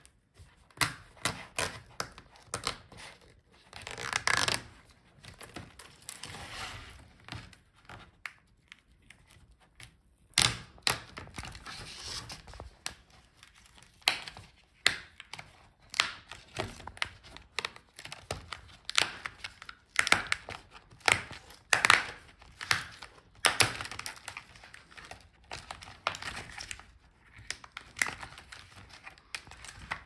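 Front bezel of a Lenovo Legion 7 laptop screen being pried off the display with a thin pry tool: irregular sharp clicks and snaps, with a few longer stretches of the adhesive peeling away, one at about four seconds and one at about ten to twelve seconds.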